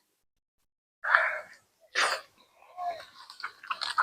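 Two sharp bursts of breath from the person eating, about a second apart, like a sneeze, followed by soft mouth noises.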